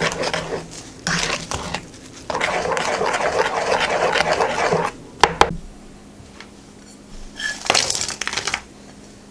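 Kitchen utensil and dish sounds: two stretches of scraping and rustling in a bowl, a couple of sharp clinks just past the middle, and a short burst of scraping near the end.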